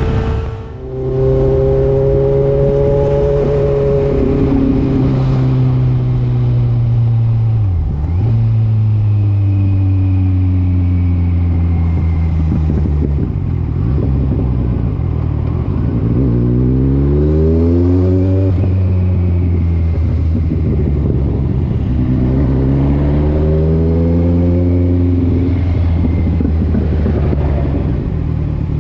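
Motorbike engine running while riding. Its pitch climbs and drops back several times as the bike speeds up and eases off, with a sharp dip just under a second in and another around eight seconds.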